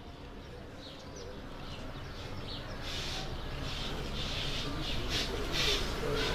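Quiet outdoor street ambience with faint bird chirps and soft murmured voices as the crowd recites under their breath.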